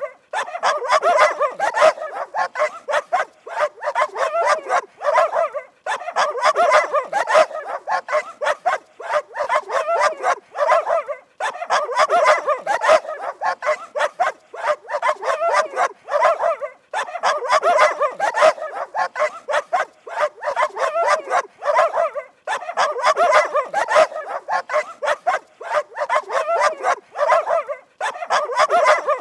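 Dog barking fast and without let-up, a string of short sharp barks several to the second, broken by a brief pause about every five to six seconds.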